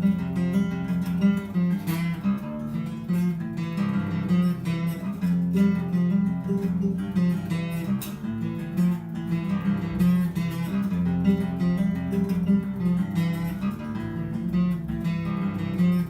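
Acoustic guitar music, plucked and strummed steadily.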